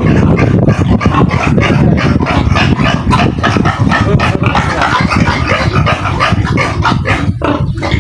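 A pen of fattening pigs squealing and grunting loudly and without pause, many animals calling over one another.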